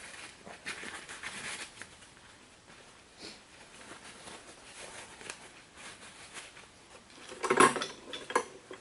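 Metal hand tools clinking and rattling against brake caliper hardware while bolts are fitted and tightened, with a cluster of sharper, louder clanks near the end.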